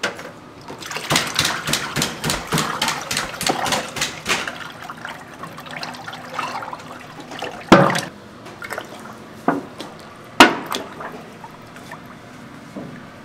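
Kitchen food-prep noises: a quick run of sharp taps and clicks for a few seconds, then two loud knocks, the first a little under halfway through and the second some 3 seconds later.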